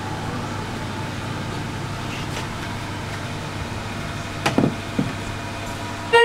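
Steady background hum and hiss with two brief knocks about four and a half and five seconds in. Music with drums cuts in loudly at the very end.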